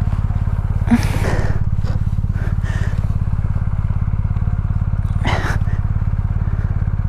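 BMW R 1250 GS boxer-twin engine idling steadily with an even low pulse while the rider heaves the dropped bike upright, with two heavy breaths of effort about a second in and again about five seconds in.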